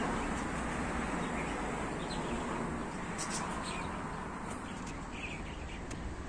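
Small birds chirping now and then, short high calls scattered through a few seconds, over a steady background hiss.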